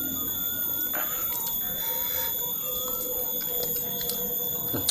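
Steady high-pitched insect drone with evenly spaced overtones, with faint wavering lower tones underneath.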